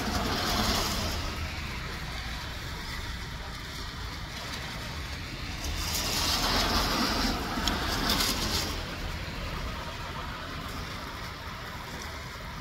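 Strong wind blowing through palm fronds and tree foliage, a steady rush that swells into louder gusts twice, briefly near the start and longer about six to eight and a half seconds in.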